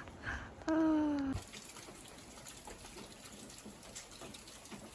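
Rain falling, an even patter of many small drops. Near the start a brief slightly falling tone, about half a second long, is the loudest sound.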